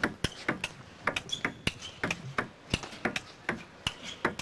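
Table tennis rally: the ball clicking off the players' bats and bouncing on the table in quick alternation, a string of sharp ticks several times a second.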